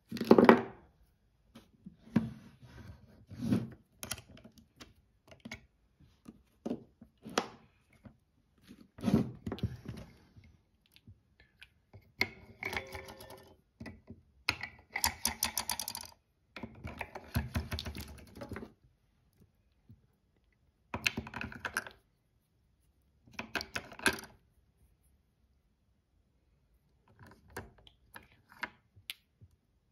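Irregular clicks and handling knocks in bursts with quiet pauses, from a Super 8 movie camera being handled and its switches and controls worked. There are dense runs of rapid clicking in the middle and a longer pause near the end.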